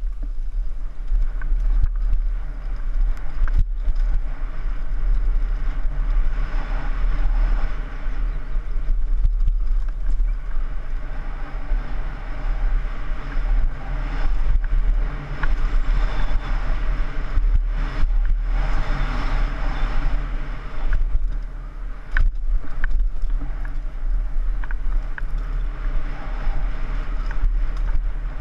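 Downhill mountain bike descending a dirt trail, heard from a helmet-mounted camera: wind buffets the microphone in a heavy low rumble, tyres rush over the dirt, and the bike rattles with scattered sharp clacks over bumps.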